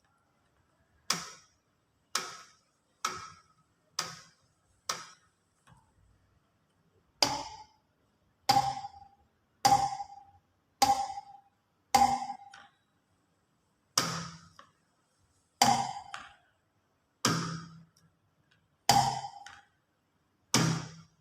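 Rubber bands stretched over a glass and a bowl being twanged one after another, about fifteen plucks in all, each a short twang that dies away quickly. After a pause about six seconds in, the plucks get louder and carry a clear ringing note, the container's walls vibrating with the band and amplifying it.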